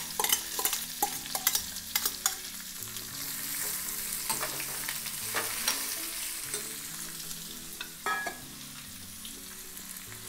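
Raw mango pieces being stirred into hot sesame oil tempered with mustard seeds and curry leaves in a small metal kadai: a light sizzle under the clicks and scrapes of the spoon against the pan. The clicks come thick in the first couple of seconds, then only now and then.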